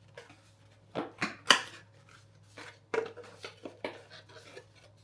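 Irregular light knocks and clicks of small hard objects being handled and set down, the loudest about one and a half seconds in.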